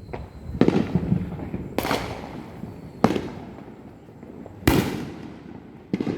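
Fireworks going off: a string of about six sharp bangs, roughly one to one and a half seconds apart, each trailing off in an echoing rumble.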